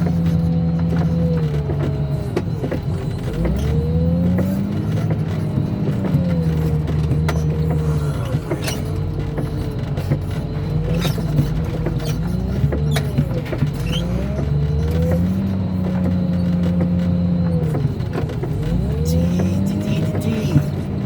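Heavy diesel engine of the yard machinery working under hydraulic load, its note dipping and rising again every few seconds as the load comes on and eases off. Rain spatters and scattered sharp ticks sound over it.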